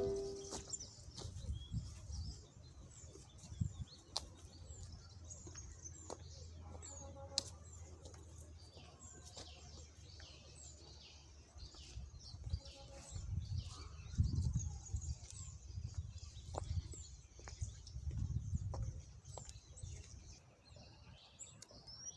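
Birds chirping faintly, many short high calls scattered throughout, with some low rumbling noise in the second half.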